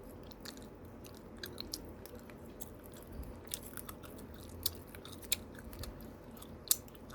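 Scissors snipping through a Mallang Cow candy wrapper, with the paper crinkling: faint, irregular small clicks and crackles, a few sharper snips standing out.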